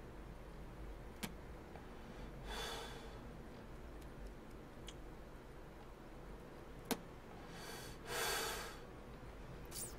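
A man breathing out cigarette smoke twice, once about two and a half seconds in and again, longer and louder, about eight seconds in. Two sharp clicks fall between the breaths, one a little past a second in and one about seven seconds in.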